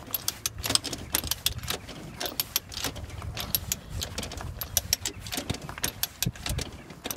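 Ratcheting screw jack being worked to lift the front wheel: a run of quick, irregular metallic ratchet clicks.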